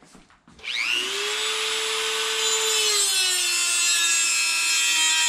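Corded Dremel rotary tool spinning up a little under a second in and running with a steady high whine while grinding down the steel tip of a flat-head screwdriver. Its pitch drops slightly about three seconds in.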